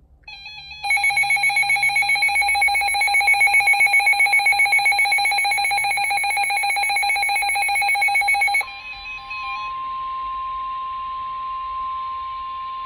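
Weather radio emergency alert: a loud electronic alert tone with several pitches, pulsing several times a second, sounds for about eight seconds, then cuts off and gives way to the steady single-pitched 1050 Hz NOAA Weather Radio warning alarm tone over faint radio hiss.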